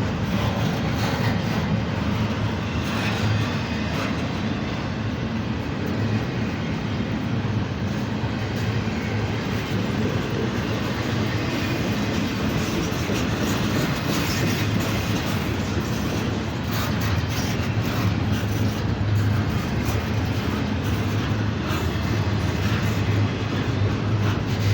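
BNSF manifest freight train rolling steadily past: a continuous loud rumble of the train's wheels on the rails, with clatter from the rail cars.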